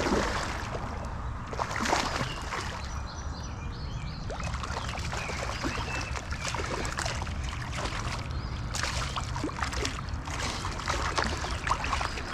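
Water splashing and sloshing in irregular bursts as a hooked smallmouth bass thrashes during the fight in the creek, over a steady low rumble.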